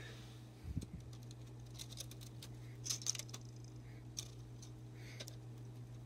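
Faint clicks and rustles of thin copper telephone wire pairs from a 25-pair cable being handled and spread out by hand, over a steady low hum. A soft thump comes a little under a second in.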